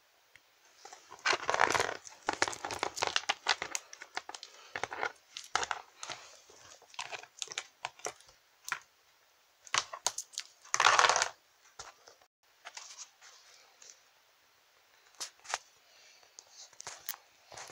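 Toys being handled: rustling and scraping with many small clicks and knocks as plastic figures and a doll are moved about on a plastic playset, loudest in two bursts of rustling about two seconds in and about eleven seconds in.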